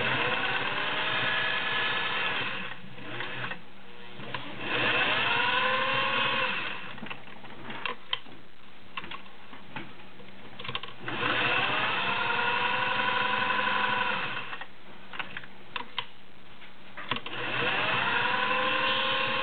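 Gear-driven Singer 404 straight-stitch sewing machine stitching through folded fabric in four runs, its motor whine rising in pitch as it speeds up at the start of each run and then holding steady. Clicks in the gaps between runs as the fabric is handled.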